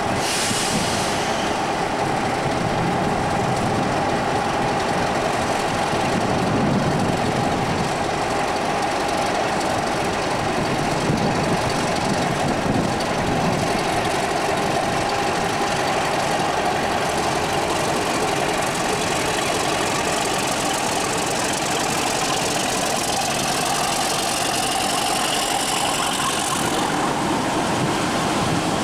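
Heavy British Rail mainline diesel locomotive engines idling with a steady hum, and a faint rising whine over the last several seconds.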